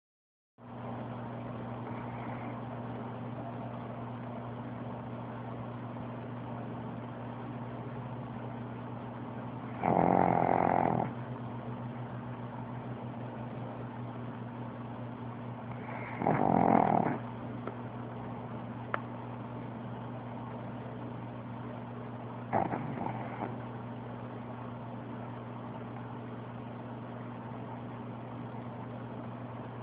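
A pug snoring: three loud snores about six seconds apart, each lasting about a second, over a steady low hum.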